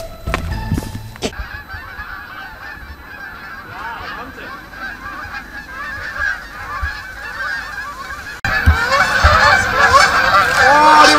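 A flock of geese honking in flight, many overlapping calls that become suddenly much louder a little past three-quarters of the way through.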